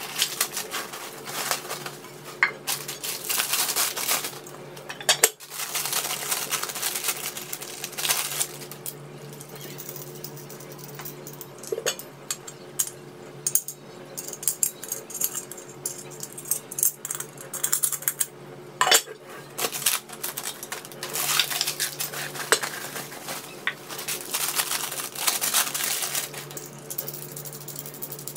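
Plastic wrapping crinkling and rustling as new pots are unpacked, with scattered clinks and knocks of tempered-glass lids against ceramic-coated cast-aluminium pots. Near the end come small metallic clicks as a knob is fitted onto a lid.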